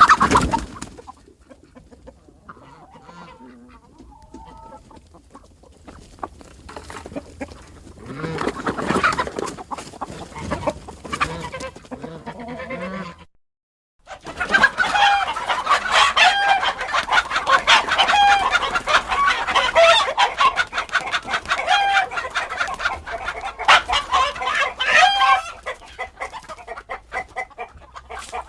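Chicken sound effects: hens clucking and squawking, first sparse and quieter, then, after a brief silent gap just past the middle, a dense, busy run of repeated squawks that thins out to scattered clucks near the end.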